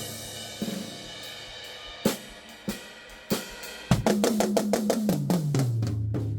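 Yamaha acoustic drum kit played, recorded through a phone's built-in microphone. A cymbal rings and dies away under a few separate hits. About four seconds in, a fast fill of about ten strokes a second steps down in pitch around the toms.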